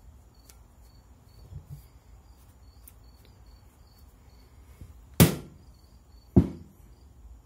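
Two sharp knocks about a second apart, each with a short ring, as the steel barrel set of an over/under shotgun is handled and bumped during cleaning.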